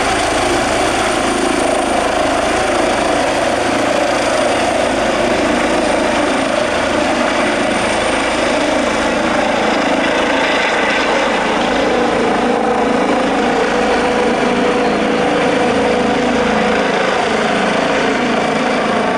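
Air ambulance helicopter climbing overhead: loud, steady rotor and turbine engine noise.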